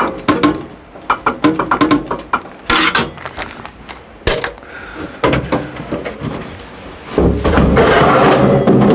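Handling of a Dometic RV furnace's sheet-metal case: scattered clicks and knocks, then near the end a loud scraping rumble lasting about two seconds as the furnace is moved and turned over on a metal work surface.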